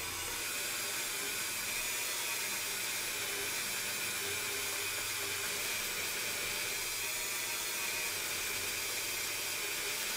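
Handheld rotary tool running steadily at low speed with a felt polishing wheel, buffing the edge of a small clear plastic windshield: a constant whine over a hiss.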